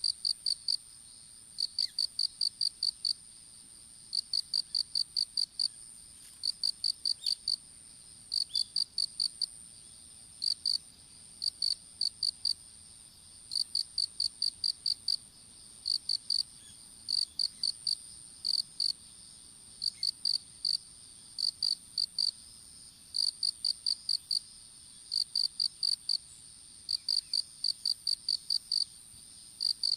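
Insects calling in a field: one chirps in short runs of quick, evenly spaced pulses, pausing between runs, over another's steady, continuous high-pitched trill.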